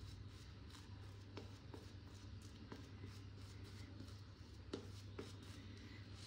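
Shaving brush swirling lather over a stubbled face: a faint, steady bristly rustle with scattered small clicks, one a little sharper near the end.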